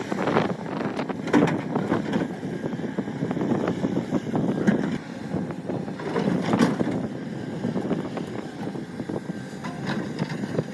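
Excavator digging rock: the engine running under load, with repeated surges of scraping and clatter as the bucket works against the rock.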